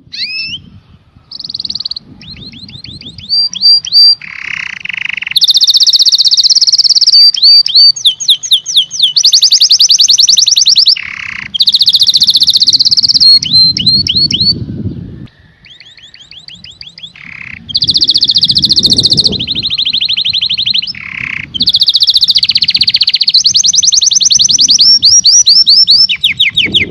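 Domestic canary singing loudly in long phrases: fast trills of rapidly repeated notes, runs of quick sweeping whistles and dense rolling passages, with brief pauses between phrases.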